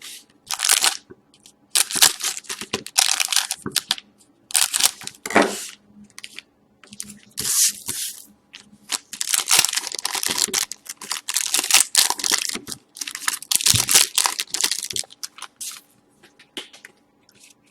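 Hockey card pack wrappers being torn open and crinkled by hand, in a run of separate rustling rips with short pauses between them.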